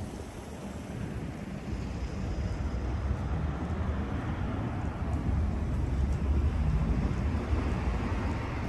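Low rumble of street traffic, swelling to its loudest about six to seven seconds in as a vehicle passes, with wind buffeting the microphone.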